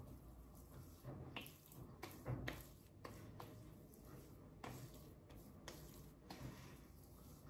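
Faint, irregular soft pats and squishes of hands spreading and patting face cream into freshly shaved skin.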